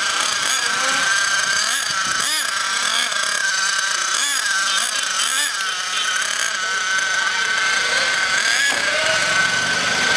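Small two-stroke nitro glow engine of an RC monster truck running at a high pitch, revving up and down again and again as the truck is driven. Near the end a lower engine drone from a passing motor vehicle joins in.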